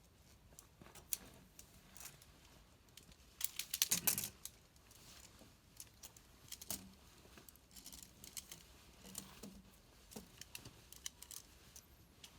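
Scattered small clicks and light rustling of close handling, with a louder flurry of clicks about four seconds in.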